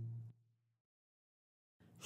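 Near silence: a held note of the song dies away just after the start, leaving a stretch of dead silence before the music comes back in at the very end.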